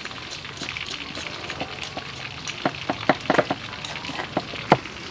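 Kitchen knife cutting onto a round wooden chopping block, with a pestle working in a stone mortar: irregular light taps and knocks, a quick cluster of them about midway and a sharper knock near the end.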